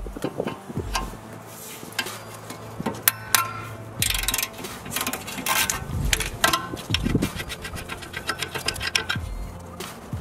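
Ratchet wrench with a 16 mm socket clicking in quick runs as it backs out the front brake caliper carrier mounting bolts, with sharp metal clinks of the tool on the bolt and bracket.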